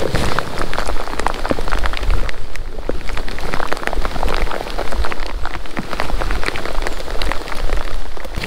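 Rain pattering on a kayak and the angler's rain gear: a dense, steady clatter of raindrop hits.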